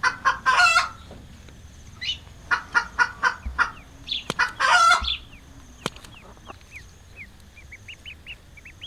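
Chicken clucking and squawking in three bursts of rapid calls over the first five seconds, followed by a run of faint, short, high chirps.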